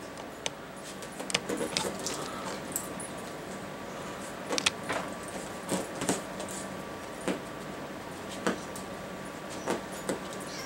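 Hard plastic treat ball pushed about by a dog, treats rattling inside it and the ball knocking, heard as irregular sharp clicks and rattles, a few in quick clusters.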